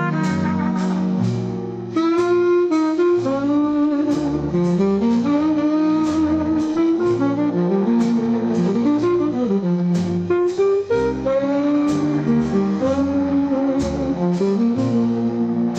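Instrumental jazz: a wind-instrument melody sliding between notes over bass notes and a steady drum beat, dipping briefly about two seconds in before coming back in full.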